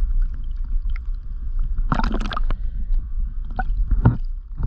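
A hooked squid held at the water's surface on a squid jig, splashing and jetting out water and ink in gurgling, sloshing squirts, with a louder splash about two seconds in and a thump near the end, over a steady low rumble.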